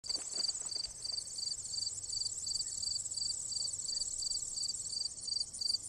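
Singing insects in grass: a steady high trill with a second, lower chirp repeating about three times a second.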